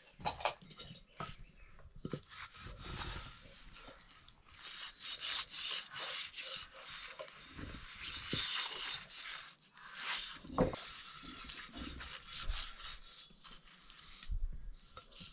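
Repeated rough rubbing and scraping strokes, in uneven swells.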